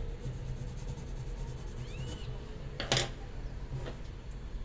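Colored pencil scratching lightly on paper in short strokes, then a single sharp knock about three seconds in, over a steady low hum.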